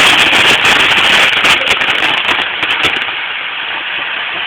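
Fireworks crackling: a dense, rapid run of small pops over a hiss, loud at first and easing off over the last second or so.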